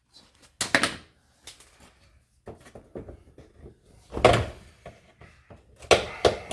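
A few separate clunks and clicks of hand tools and plastic trim while the fastenings of a car's front bumper are undone. The loudest knock comes about four seconds in, with another pair near the end.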